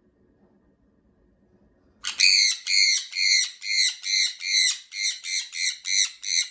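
Pet parrot squawking loudly in a rapid run of about a dozen harsh, high-pitched calls, two to three a second, starting about two seconds in. The shouting is an alarm reaction that the owner puts down to voices heard outside.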